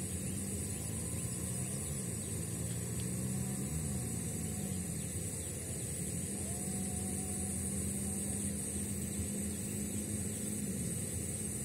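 A motor engine running steadily over a steady hiss. Its pitch dips and recovers twice in the first few seconds, then falls away near the end.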